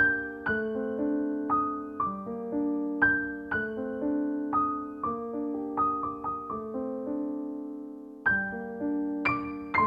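Background music: a slow, gentle keyboard melody over held chords, a new note struck about every half second, with a long held chord about two-thirds of the way through before the notes resume.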